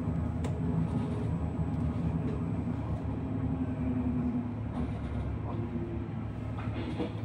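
Electric bus driving along a city street, heard from on board: a steady hum of the electric drive over road rumble, with a slight shift in the drive's tone midway.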